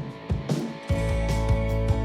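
Background music: a drum beat alone, then about halfway through a fuller band sound with bass and guitar comes in over it.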